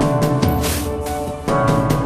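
Background music with a steady beat: pitched chords over drum hits, the chord changing about a second and a half in.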